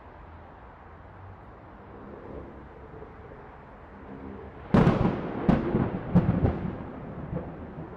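Steady hum of distant city traffic, then, about two-thirds of the way in, a sharp thunderclap followed by two more cracks over the next second and a half, fading into rolling thunder.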